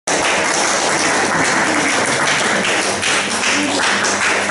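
Loud live music for a dance, mostly jingling percussion and hand clapping, cutting in abruptly.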